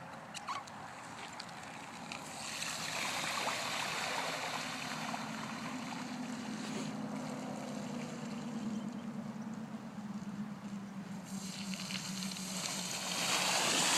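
Bicycle tyres rolling through a deep puddle, water spraying and sloshing. The sound swells in about two seconds in and grows louder again near the end, with a faint low hum through the middle.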